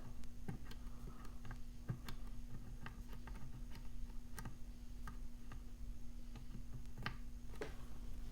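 Faint, irregular clicks and ticks of a lock pick and tension wrench working in a Brady Safekey padlock, the pick dragging through the rubber gasket in its keyway, over a steady low hum.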